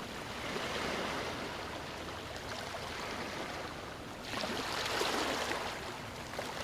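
Calm sea waves washing onto a sandy beach: a steady wash of surf, with a fresh wave surging in, louder and hissier, about four seconds in.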